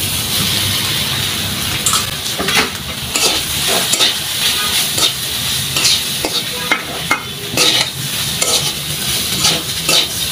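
Potatoes sizzling in hot mustard oil with fried onion and green chilli in a wok, while a metal spatula mashes and stirs them, scraping and knocking against the pan at irregular moments.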